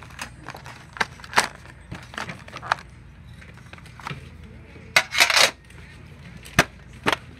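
A metal Hershey's tin being handled on a table: a string of light clicks and metallic knocks, with a short scraping rustle about five seconds in and a sharp knock shortly after six seconds.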